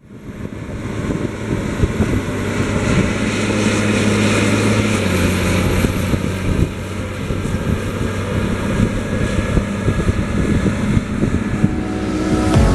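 Case IH STX 450 Quadtrac's diesel engine running with a steady drone while ploughing, fading in at the start.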